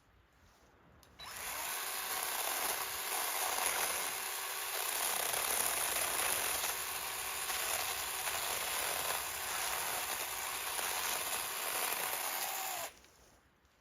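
A power tool running steadily for about twelve seconds, with a dense hiss and a faint steady hum. It starts abruptly just after a second in and cuts off abruptly near the end.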